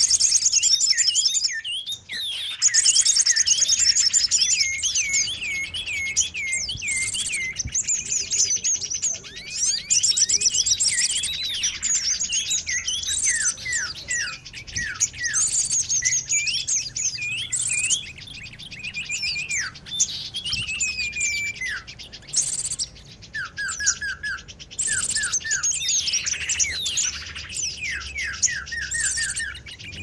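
Many small songbirds chirping and twittering at once in a dense, busy chorus: high rapid twitters with repeated runs of quick down-slurred notes. It is a noisy-bird lure recording, played to draw wild birds in.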